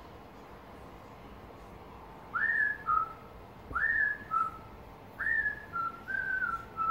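Whistled tune from the DVD soundtrack, heard through a TV speaker: after about two seconds of faint hiss come three short phrases, each a quick upward slide to a high note that drops to a lower one. The last phrase ends on a longer held note.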